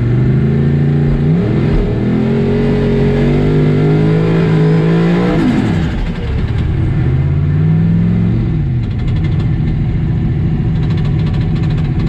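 Race Mustang's 8.2-deck Ford V8, heard from inside the cabin, revving up and held at a steady raised speed, dropping off about halfway through. It revs briefly again a couple of seconds later, then settles to a lower, steady rumble.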